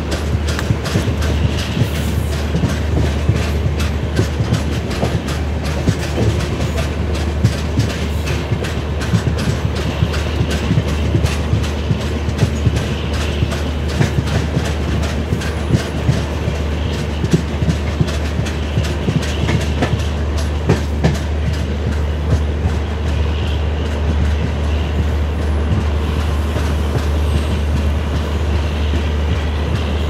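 LHB passenger coach running along the track: a steady low rumble of wheels on rail with a dense, irregular rattle of clicks.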